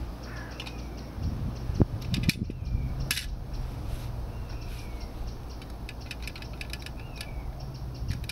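Light metallic clinks and scrapes of a steel pot being handled on a small gas camping stove, with a few sharper knocks about two and three seconds in. Birds chirp now and then over a low steady rumble.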